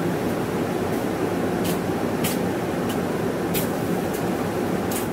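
Cabin sound of a Hino Rainbow II medium-size non-step city bus under way: a steady diesel engine and road noise. A few brief sharp ticks or rattles sound through it, the last near the end.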